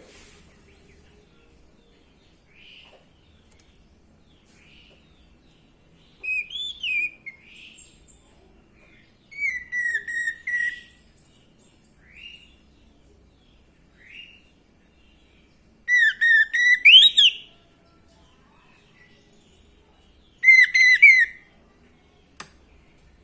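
Orange-headed thrush singing: four loud bursts of whistled phrases that glide up and down, mixed with high twittering, separated by pauses of a few seconds, with a few soft single calls in between.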